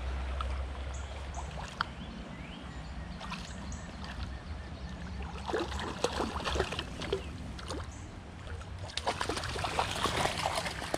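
A hooked brown trout splashing and thrashing at the surface of a shallow creek, in clusters of splashes, over the steady run of water. Near the end there is louder sloshing as the angler wades toward the fish.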